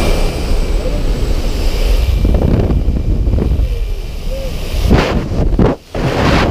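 Heavy wind buffeting the microphone at the open door of a skydiving jump plane, with rushing air in the cabin. It carries on as the jumper exits into freefall about five to six seconds in, with a few gusty surges and one brief sharp dip in level.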